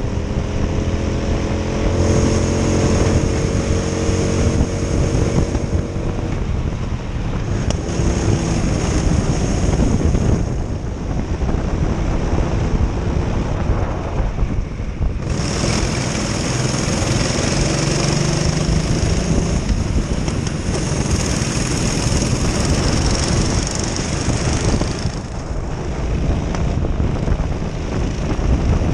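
Onboard sound of a twin-engined Honda-powered Prokart racing kart running at speed, with heavy wind noise on the microphone. The engine note dips several times and then picks back up.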